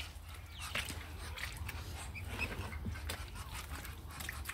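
Faint animal sounds with scattered small clicks and knocks over a low, steady rumble.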